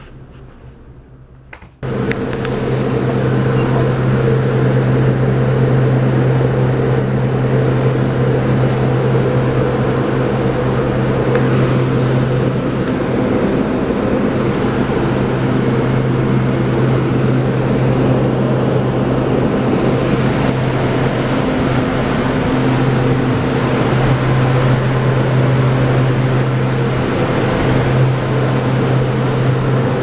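Walk-in cooler refrigeration unit running: a loud, steady mechanical hum with a strong low drone and a rushing of fan air, which comes in suddenly about two seconds in.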